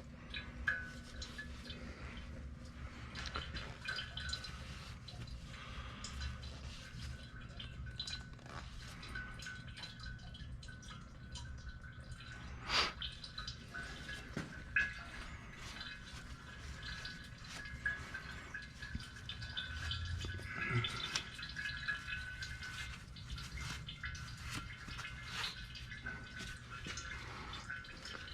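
Motor oil dripping from a loosened oil filter as the engine drains: many small irregular drips, with a sharper click a little before halfway through.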